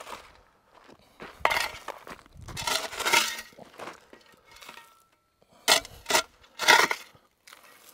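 Steel shovel scraping into gravel and dumping shovelfuls of gravel and dirt onto a burning cordless drill to smother the battery fire, the stones rattling and clinking in several short bursts.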